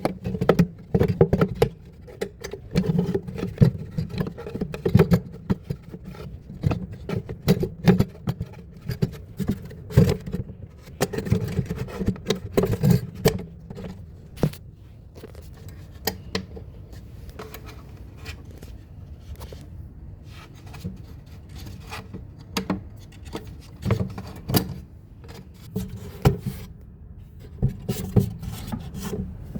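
Hands and tools working on a wooden bedside-table drawer: irregular knocks, clicks and scraping, busiest in the first half.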